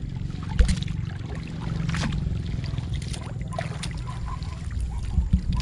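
Water sloshing and splashing as a long-handled shrimp scoop net is worked through shallow river water and lifted, with scattered short splashes, over a steady low rumble. A sudden thump comes about half a second in.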